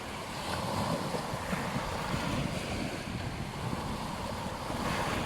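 Ocean surf washing onto a beach: a steady rush of breaking waves that swells gently, with wind on the microphone.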